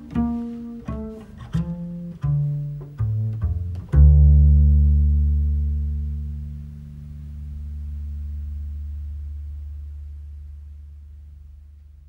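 Double bass played pizzicato: a short run of plucked low notes, then a final low note about four seconds in that rings on and slowly fades out, closing the song.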